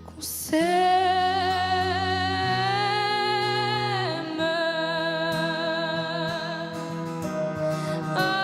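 Background music: a melody of long held, sliding vocal notes over sustained chords.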